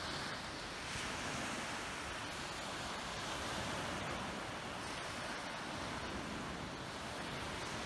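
Sea waves washing onto the beach in a continuous rush of surf, with some wind buffeting the microphone.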